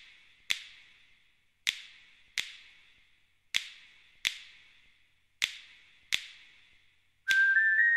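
Echoing finger snaps in pairs, a pair about every two seconds, the intro of a music track. Near the end a high, whistle-like melody comes in, stepping up in pitch.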